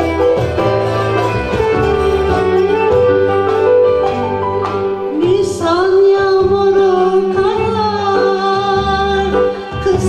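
Turkish classical (Türk Sanat Müziği) song in makam Rast played by a small instrumental ensemble, with a woman's solo voice coming in with a rising phrase about halfway through and singing on over the accompaniment.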